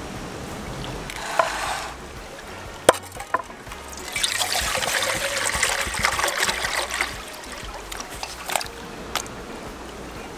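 Water poured from above into a metal pot, a steady splashing stream for about three seconds in the middle, with a few sharp knocks before and after. A running stream hisses softly underneath.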